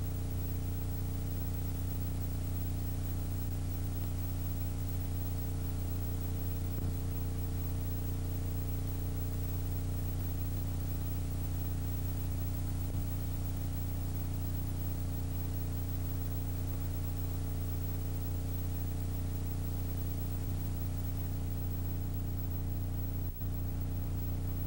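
Steady low electrical hum with tape hiss and no program sound: the silent audio track of an analogue videotape transfer. The level dips briefly once near the end.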